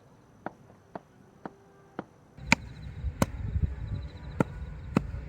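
A blade chopping into firewood: sharp wooden knocks, light and about twice a second at first, then louder, more spaced strikes from about halfway through over a low rumble.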